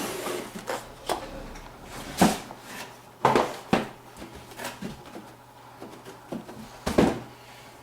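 Motherboard box and its accessories being handled and taken out: a run of irregular knocks and clicks of cardboard and packaging being moved, the sharpest about two, three and seven seconds in.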